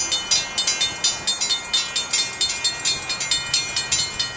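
Railroad grade crossing warning bell ringing rapidly, about four strikes a second, signalling an approaching train.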